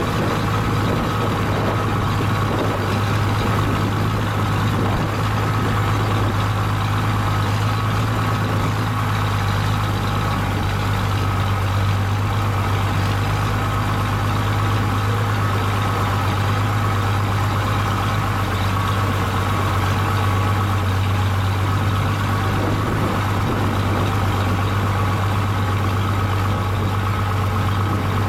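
Vehicle engine running steadily with a constant low drone as it drives slowly along a rough dirt track.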